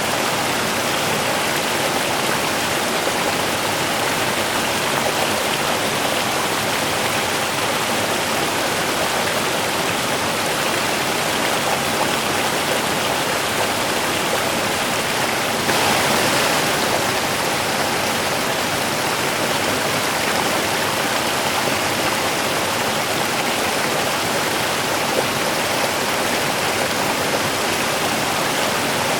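Running water rushing steadily, a waterfall's or stream's continuous noise, briefly a little louder about halfway through.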